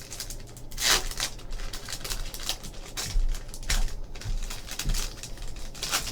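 Plastic wrapping and cardboard of a sealed trading-card hobby box being torn and crinkled as it is opened, in a series of irregular rustles with a few sharper tearing crackles.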